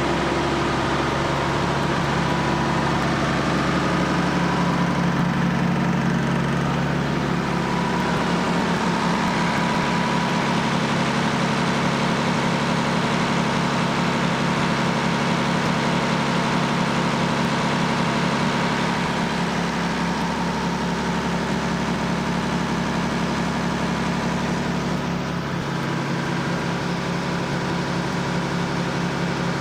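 Ship's generator engine running steadily, a constant even drone with no change in speed.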